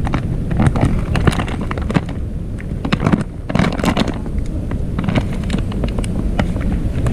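Plastic bag crinkling in quick, irregular crackles as its neck is gathered and tied shut with string, over a steady low rumble.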